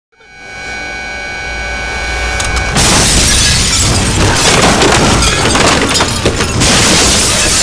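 Vehicle crash sound effect: a steady whine fades in and builds, then about three seconds in a loud crash with shattering glass, its dense breaking noise continuing on.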